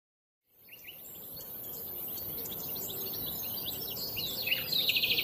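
Birds chirping and twittering over a steady background hiss, fading in at the start, with a fast trill near the end.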